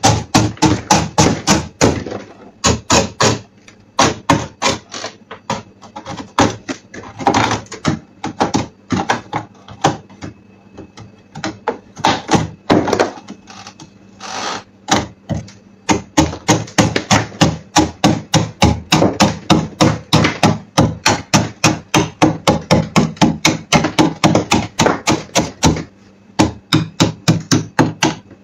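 A metal scraper blade hacking and scraping at thick frost on the walls of a freezer, chipping it away in quick repeated strikes of about three a second. It comes in several bursts, with two quieter pauses in the first half.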